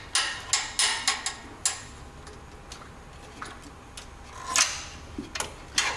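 Scattered metal clicks and clinks of a wrench on the oil pan's 14 mm drain plug as it is cracked loose. A quick cluster comes in the first couple of seconds and a few more near the end.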